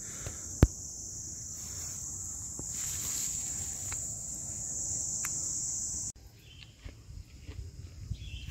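Steady high-pitched chorus of insects buzzing, with a single sharp click near the start; the buzzing cuts off suddenly about six seconds in, leaving faint footsteps and rustling.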